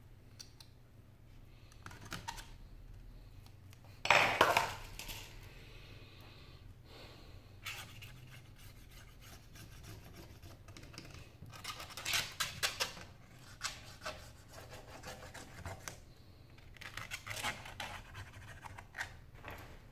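A thin metal pry tool scraping and clicking against a tablet's metal midframe, with hands handling the frame. The loudest is a scrape about four seconds in, followed later by two clusters of quick clicks and scrapes.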